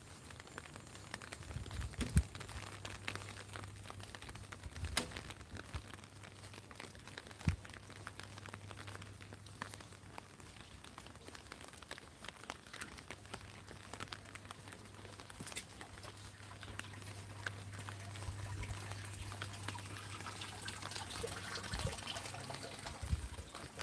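Rain pattering on an umbrella overhead, a dense stream of small drop taps with a few louder taps now and then, and footsteps on wet pavement. A low steady hum lies underneath.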